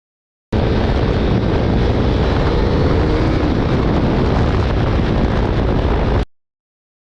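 Heavy wind buffeting on a GoPro's microphone while riding a KTM RC 390, with the Akrapovic full-system exhaust running underneath. The sound drops to dead silence for about the first half second and again for the last second.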